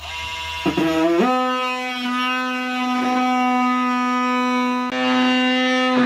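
A sustained horn-like note, like a brass or reed wind instrument: its pitch slides up about a second in, then holds steady, with a brief break near five seconds in.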